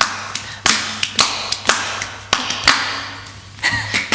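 Sharp hand-struck taps, about two a second, each with a short ringing tail, closing an unaccompanied improvisation played without instruments. They ease off briefly about three seconds in, then hand claps follow near the end.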